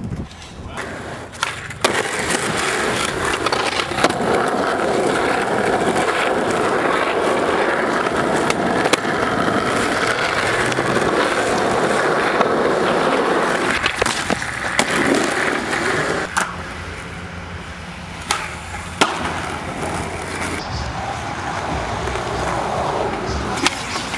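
Skateboard wheels rolling over rough pavement with a steady grinding rumble, broken by sharp clacks of the board popping and landing several times.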